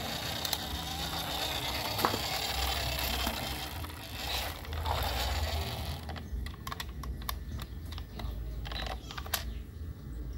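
A plastic toy police car handled on a concrete floor: a steady scraping rustle for the first several seconds, then a string of sharp plastic clicks from about six seconds in as its doors are worked open.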